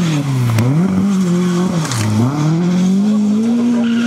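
Historic rally car engine running hard at high revs. The revs drop sharply twice, then climb and hold high and steady as the car accelerates away through the corner.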